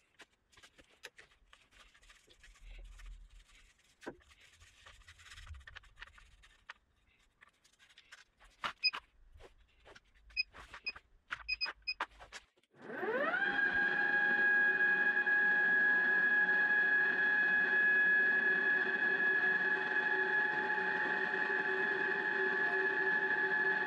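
Light handling clicks and several short electronic beeps from the digital readout's keypad. Then, just past halfway, the Boxford VM30 milling machine's spindle motor starts, rising in pitch as it spins up and settling into a steady whine.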